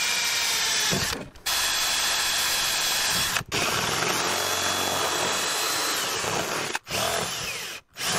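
Cordless drill boring through a sheet-metal van roof, the bit grinding through the metal with a steady whine. It runs in spells, stopping briefly about four times.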